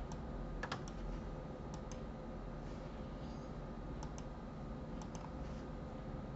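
Faint clicks of a computer mouse's left button, mostly in quick pairs like double-clicks, several times over a low steady background hum.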